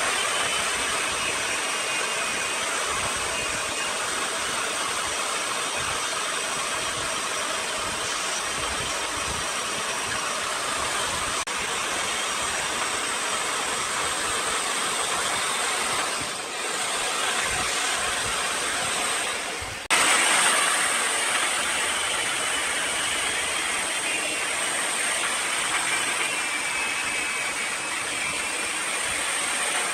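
Wood lathe at work, a tool or abrasive on the spinning wood giving a steady, dense hiss over a thin high whine. The sound changes abruptly about twenty seconds in, then carries on slightly louder.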